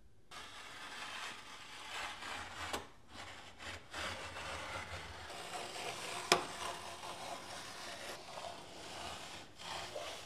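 Razorscribe scribing tool pushed along the floor, its razor blade slicing blue painter's tape: a continuous scraping rub with a few brief pauses, and one sharp click about six seconds in.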